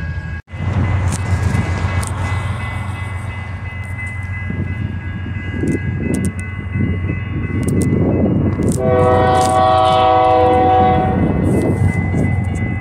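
A diesel locomotive approaches, its engine rumble building. About nine seconds in it sounds its multi-chime air horn, one blast of several notes at once lasting about two seconds.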